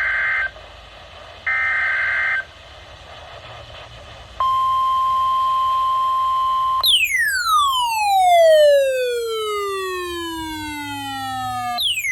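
Emergency Alert System SAME header data bursts: a warbling digital tone about a second long, heard twice. After a short pause comes a steady single-pitch NOAA Weather Radio alert tone for about two seconds. It is cut off by a long falling electronic pitch sweep with overtones lasting about five seconds, with another quick falling sweep near the end.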